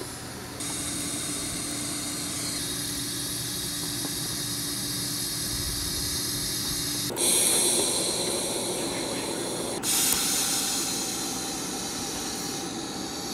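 Steady hiss of a TIG welding arc, in several takes that change abruptly; it grows louder about seven seconds in.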